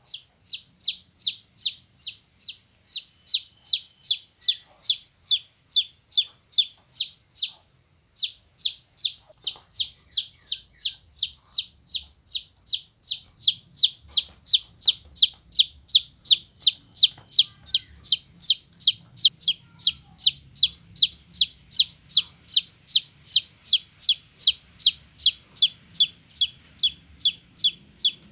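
A domestic chicken chick peeping loudly and without let-up: short, high notes that each slide down in pitch, about three a second, with a brief break about eight seconds in.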